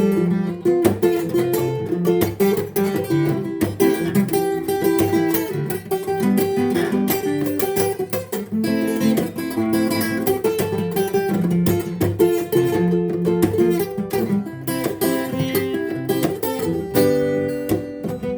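Acoustic guitar playing an instrumental tune, plucked melody notes over strummed chords, at a steady level throughout.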